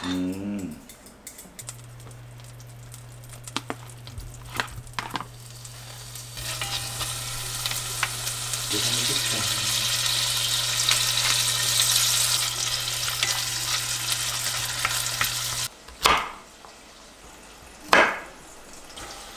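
Food sizzling and frying in a pan as it is stirred, the sizzle building up about six seconds in over a steady low hum. Both stop suddenly, and two sharp knocks follow near the end.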